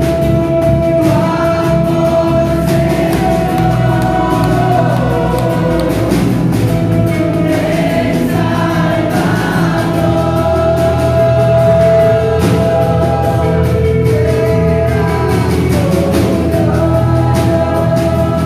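Worship band playing gospel-style Christian music, with a group of voices singing together in long held notes; the bass moves to a new note about ten seconds in.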